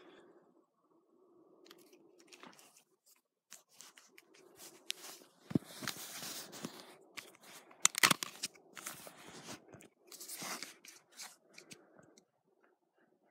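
Plastic body of a Samsung SCH-N370 mobile phone being handled while its back cover and battery are taken off: a run of scrapes and sharp plastic clicks, the loudest snaps about eight seconds in.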